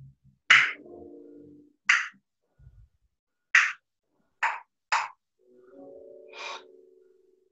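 A man's voice vocalising the rhythm of a dance movement without words: six short, sharp breathy hisses and two drawn-out low hummed tones, one just after the start and one in the second half.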